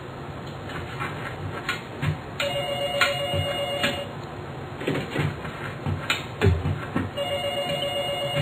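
Office telephone ringing in repeated rings of about a second and a half each, one starting about two and a half seconds in and another about seven seconds in. Several soft thuds fall between the rings.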